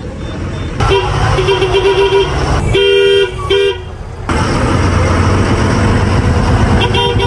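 Vehicle horns honking in traffic over the steady engine and road noise inside a truck cab. There is one long horn note in the first couple of seconds, two shorter, louder blasts about three seconds in, and a brief one near the end.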